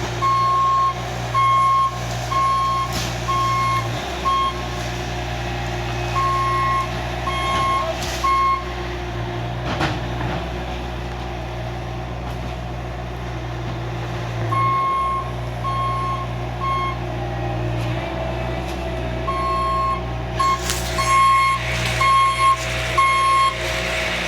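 A heavy truck or work machine's engine running steadily, while its reversing alarm beeps in four separate runs of evenly spaced beeps, about one beep every two-thirds of a second, as the machine backs up and stops several times.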